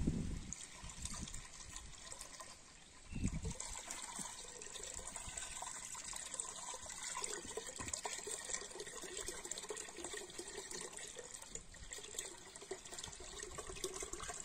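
Buttermilk left over from churning butter, trickling steadily from a hose into a steel pot. There is a short thump about three seconds in.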